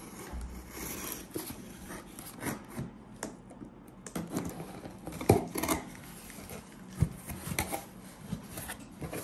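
Hands handling a cardboard parcel: rubbing and tapping on the box and its label, then the flaps pulled open, with scattered knocks and rustles of cardboard, the sharpest about five and seven seconds in.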